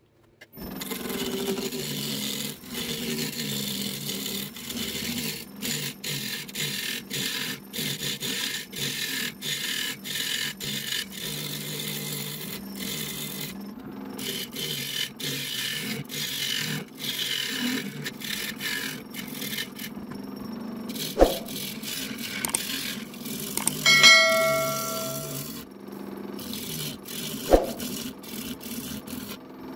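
Wood lathe running while a turning tool scrapes and cuts into a spinning pine bowl, the cutting broken by many short stops. Near the end there is a brief ringing tone and two sharp knocks.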